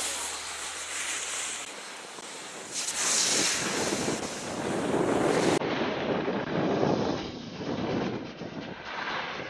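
Wind rushing over a camcorder's microphone, a noisy roar that swells and fades, with a change in its sound about halfway through.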